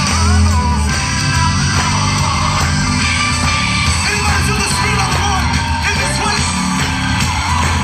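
Loud worship song with singing over a band accompaniment and a strong, steady bass.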